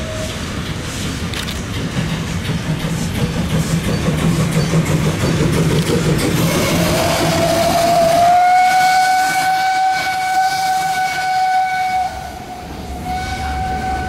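Steam locomotive's whistle: one long blast that rises in pitch as it opens about halfway through, then holds steady for about four seconds, followed by a second shorter blast near the end. Before and under it, the rumble and clatter of the train's coaches rolling past on the rails.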